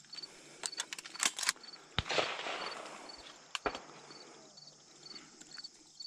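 A shotgun shot about two seconds in, its report fading over about a second, with a few sharp clicks and rustles before and after it. A faint high insect chirp repeats two to three times a second underneath.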